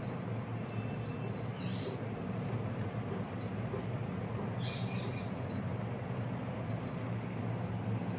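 Steady low background hum, with two brief high squeaks about two and five seconds in.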